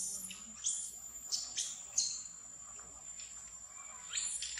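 Short high-pitched chirps, several in quick succession, then a pause and two or three more near the end, over a steady high-pitched whine.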